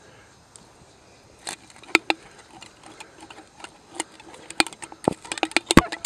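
Fishing line being wound back onto an aluminium drink can turned in the hands: a run of irregular sharp clicks and ticks, sparse at first and coming much faster in the second half.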